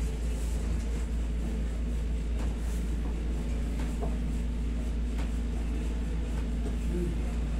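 Steady low rumble and hum of a window-type air conditioner running, with a few faint clicks.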